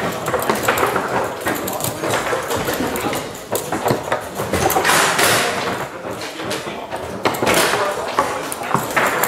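Foosball being played on a Tecball table: irregular sharp clacks and knocks of the ball striking the players and table and of the rods being worked, over a background of people talking.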